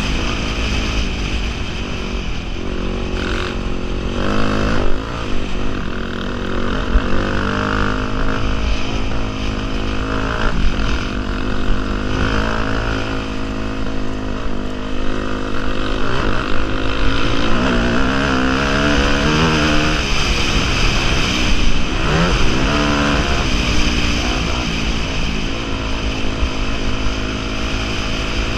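Dirt bike engine running under way on a gravel trail, its pitch rising and falling again and again as the throttle is opened and eased.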